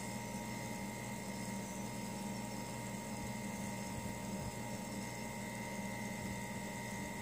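Steady background hum with a faint high-pitched whine over it.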